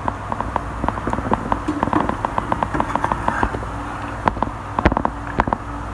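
Hot oil sizzling and crackling with quick irregular pops as fish balls deep-fry in a small pan. A few louder knocks come in the second half as a metal slotted spoon lifts the balls out.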